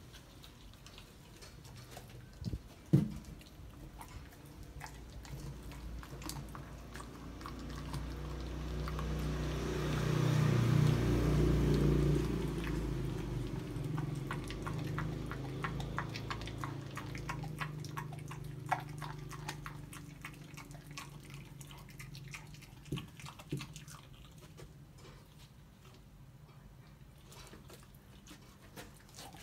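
Puppy gnawing and crunching frozen raw chicken bones: a run of small wet clicks and crunches, with a sharp knock about three seconds in. A low hum swells up through the middle, loudest about eleven seconds in, then fades away.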